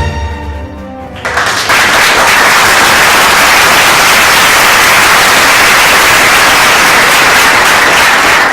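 Music notes fading out, then about a second in a loud, steady hiss of noise takes over, like static.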